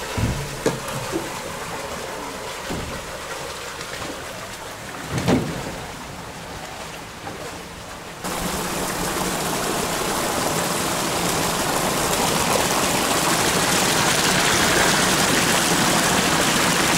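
Water running through a concrete culvert, with a few knocks from the aluminum canoe being moved through it; the loudest comes about five seconds in. After about eight seconds a louder, steady rush of water takes over.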